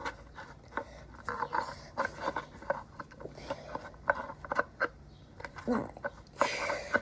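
Irregular light clicks and taps of small parts being handled and worked by hand, with a brief vocal sound about six seconds in.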